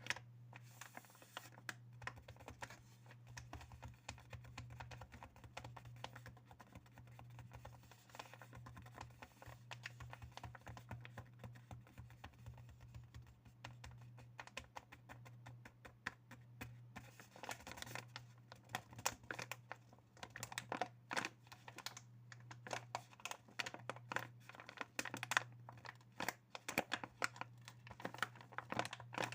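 ASMR tapping on objects at close range: a rapid, irregular stream of light taps and clicks, growing denser about halfway through, with a steady low hum underneath.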